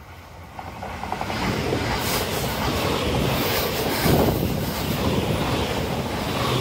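JR West limited express electric train approaching and passing at speed, its noise building over the first two seconds into a loud, steady rush of wheels on rail as the cars go by close at hand.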